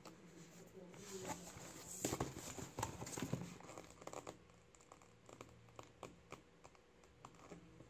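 Cardboard box and paper inserts being handled and unpacked, with faint rustling and light taps and knocks. They are busiest from about two to three and a half seconds in, then sparser.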